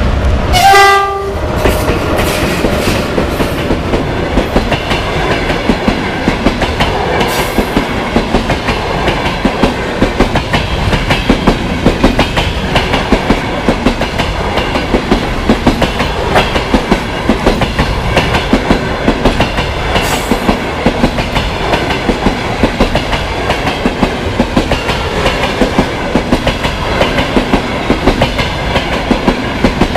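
An EP1M electric locomotive passing close, giving a short horn blast about a second in. Its passenger coaches then roll by, their wheels clattering steadily over the rail joints.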